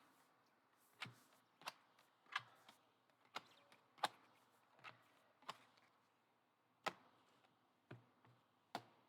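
Trading cards being handled one at a time: about ten faint, short clicks and snaps spaced unevenly, roughly one a second, as cards are flicked and slid off the stack.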